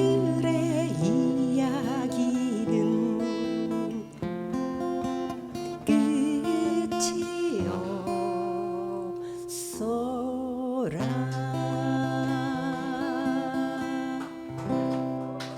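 Acoustic guitars playing a slow folk-song accompaniment, with a sustained vocal line wavering over it in places.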